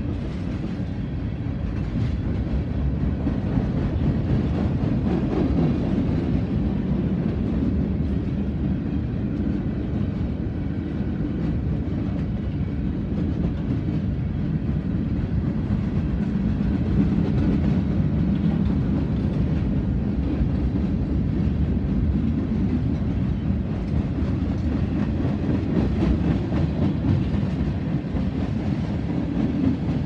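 Freight cars of a mixed manifest train (tank cars, boxcars and autoracks) rolling past, a steady low rumble of steel wheels on the rails.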